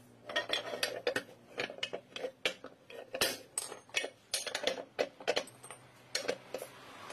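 Metal tools and engine parts clinking and knocking against each other as they are handled, in an irregular run of sharp taps, a few each second.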